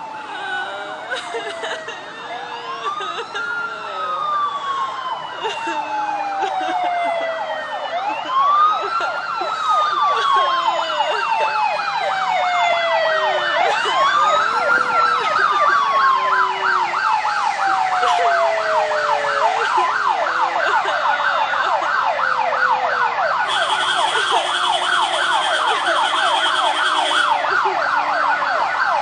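Emergency vehicle siren: a slow wail rising quickly and falling slowly, repeated about every five to six seconds, that switches about halfway through to a fast yelp. Near the end a steady horn-like blast sounds for about three seconds over the yelp.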